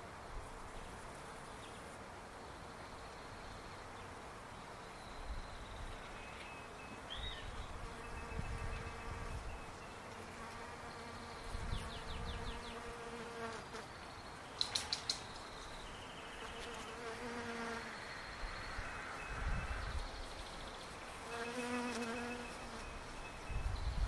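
Bees buzzing while foraging in a flowering palo verde tree, individual bees swelling and fading as they fly close by. About halfway through there are three sharp clicks close together.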